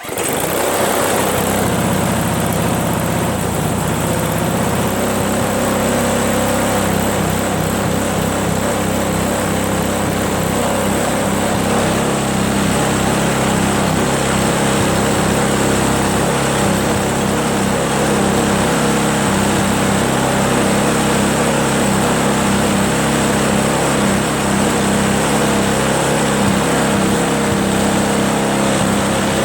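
Craftsman 522 single-stage snowblower's four-stroke engine starting on choke and running. Its note changes about five seconds in, then it runs steadily. It runs now that the water has been drained from the tank and the carburetor cleaned.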